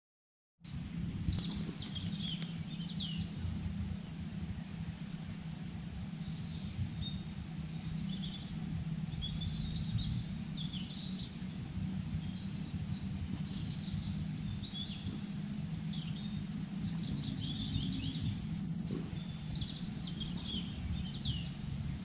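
Rural field ambience that starts about half a second in: a steady high insect drone, birds chirping on and off, and a low steady rumble underneath.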